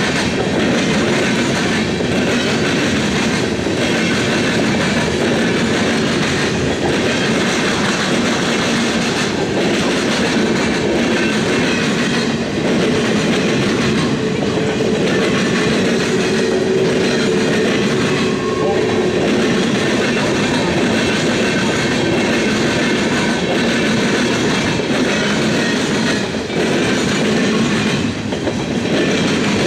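Freight train of tank cars and gondolas rolling past at close range, its wheels clicking steadily over rail joints, with a faint whine about halfway through.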